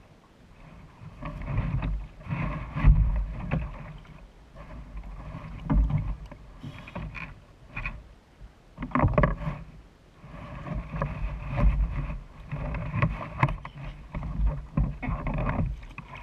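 Sea water slapping and sloshing against a kayak's hull, with wind buffeting the microphone, in irregular surges and a few sharp knocks.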